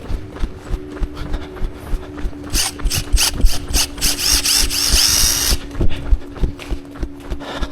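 A whirring mechanical noise runs for about three seconds in the middle, over a steady hum and regular low thuds.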